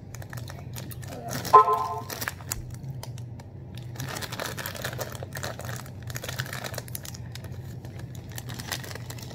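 Plastic snack bag crinkling and crackling as it is handled and a snack ring is taken out, with a brief vocal sound about a second and a half in.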